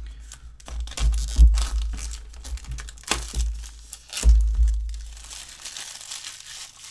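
Clear plastic shrink-wrap crinkling and tearing as it is peeled off a cardboard product box and crumpled by hand. Two dull thumps, about a second and a half and four seconds in, are the loudest sounds, from the box being handled on a wooden table.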